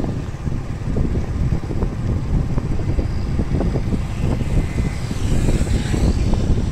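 Wind buffeting the microphone on a moving vehicle, a loud, unsteady low rumble with road and engine noise underneath.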